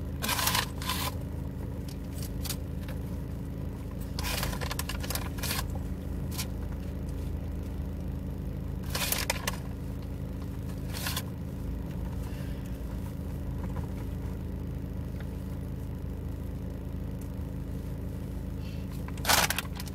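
Steady low hum of a car idling, heard from inside the cabin. Over it come short bursts of scraping and rustling from handling food and packaging, with the loudest just before the end.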